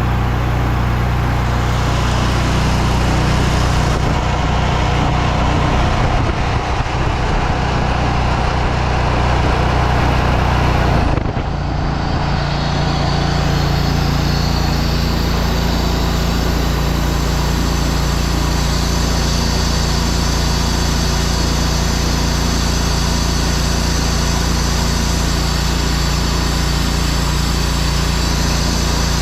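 Small gas engine of a pressure washer running steadily under load while it sprays and draws chemical through a 2.3 downstream injector. About eleven seconds in, the sound briefly dips and the engine note shifts, then it runs steadily on.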